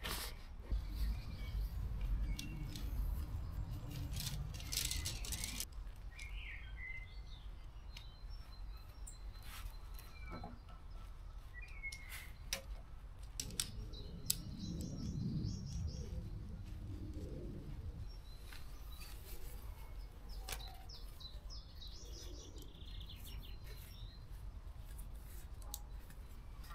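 Small birds chirping and trilling, with gusts of wind rumbling on the microphone and scattered clicks and rustles from tent poles, clips and bags being handled.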